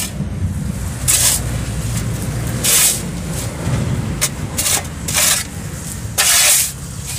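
Steel shovel blade scraping over a concrete slab as it scoops and turns a gritty sand-and-cement block mix. There are four or five short, hissing scrapes about every second and a half, over a steady low rumble.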